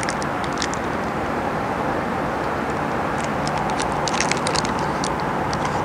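Steady city traffic hum, with small wet clicks of a person chewing soft, sticky peanut nougat close to the microphone; the clicks bunch up about two-thirds of the way through.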